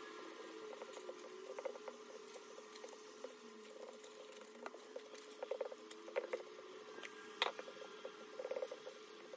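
A plastic-gloved hand pressing and tamping a sticky oat-and-nut mixture into a parchment-lined glass dish: faint, irregular crinkling of parchment paper and rustling of the glove, with one sharper click about seven seconds in.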